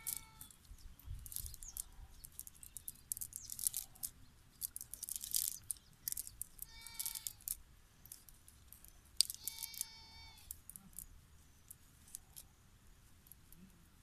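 Rustling and crackling of a wet nylon cast net being handled and shaken out by hand, in scattered short bursts. Three short high-pitched calls come through: one at the start, one about seven seconds in and a longer one around nine to ten seconds in.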